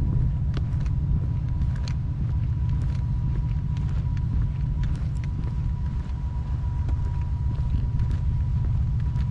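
A steady low rumble with a thin steady whine above it and a few faint ticks.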